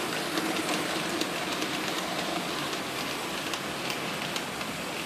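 HO scale Märklin model train rolling along the track, its wheels rattling over the rails and fading away about halfway through. Under it runs a steady hiss with faint scattered clicks.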